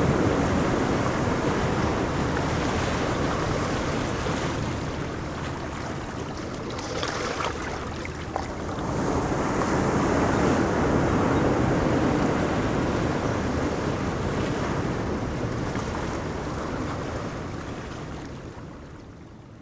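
Ocean surf on a beach: waves breaking and washing up the shore in a steady, rushing noise that swells and ebbs over several seconds, then fades out near the end.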